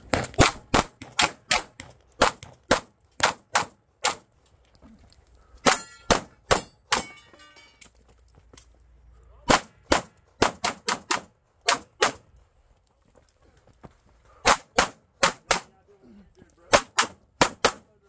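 Glock pistol fired in rapid pairs and strings, several volleys broken by short pauses as the shooter moves between positions. About six seconds in, a metallic ringing follows some of the shots: steel targets being hit.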